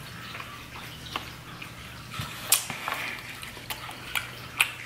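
Close-miked wet eating sounds of sausage in sauce being eaten: quiet chewing with scattered sharp, wet clicks and smacks.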